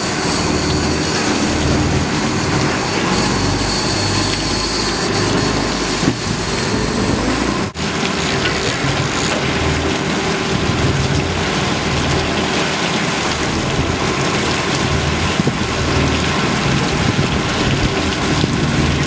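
A fishing boat's engine running under a steady rush of wind and water, with wind buffeting the microphone in low, uneven gusts. The sound drops out for an instant about eight seconds in.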